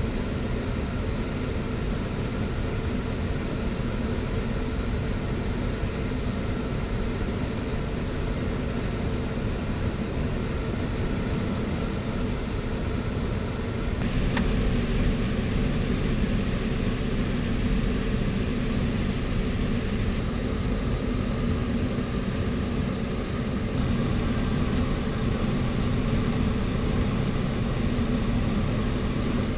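Steady vehicle running noise, engine and road drone with a few steady hums, growing a little louder about halfway through.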